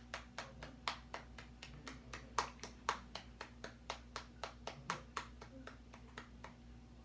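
Soft, fast hand claps in a steady rhythm, about four a second, stopping about six and a half seconds in. They are made to imitate rhythmic slapping of bodies.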